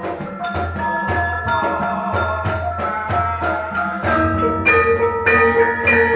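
Javanese gamelan ensemble playing: metallophones such as saron and bonang struck in a steady pulse of ringing notes over kendhang drum beats, growing louder and fuller about four seconds in.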